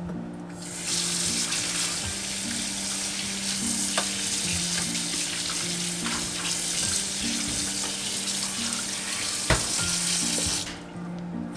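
Food sizzling in a frying pan: an even hiss that starts about a second in and stops shortly before the end, with two light knocks. Soft background music plays underneath.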